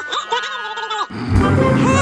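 Background music with a voice over it, changing abruptly about a second in to another part with a heavy bass beat.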